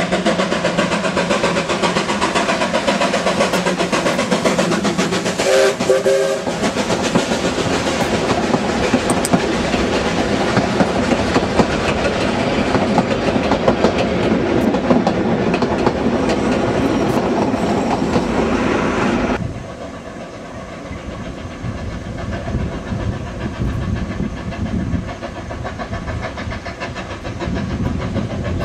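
Steam tank locomotive running past close by, working steadily, with its carriages clattering over the rail joints and a brief whistle note about six seconds in. At about nineteen seconds the sound drops suddenly to the quieter, more distant running of a steam train.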